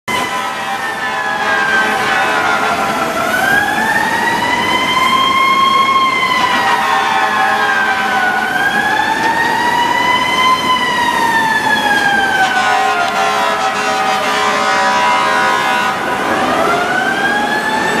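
FDNY ladder truck's mechanical siren wailing, its pitch winding slowly up and down about every five seconds.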